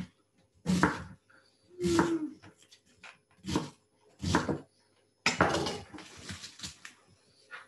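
Kitchen knife cutting through a raw cabbage onto a cutting board: a series of separate cuts about a second apart, then a quicker run of cuts near the end.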